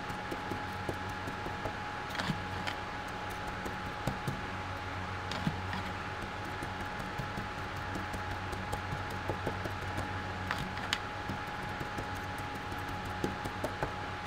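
Electric desk fan running with a steady hum and a thin constant whine, with scattered light clicks and taps from a brush and plastic bottle being handled.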